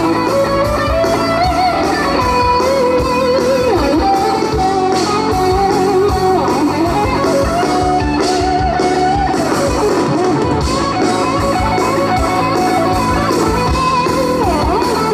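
Live band music: an electric guitar plays a melodic lead with bending notes over bass and drums.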